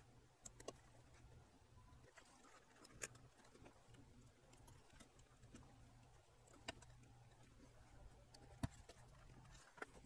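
Near silence with a faint low hum, broken by a handful of short, sharp clicks and taps as a circuit board and its components are handled. The loudest click comes near the end.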